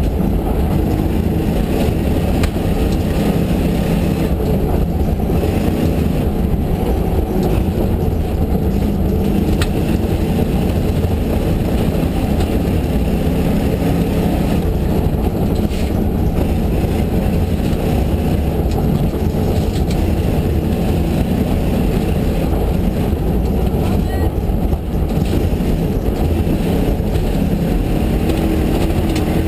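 Ford Mustang GTS rally car's engine running hard at speed, heard from inside the cabin: loud and steady throughout.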